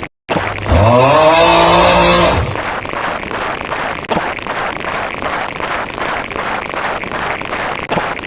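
A loud engine-like sound effect that spins up, rising in pitch, holds steady for about two seconds, then stops, over quiet background music with a steady beat.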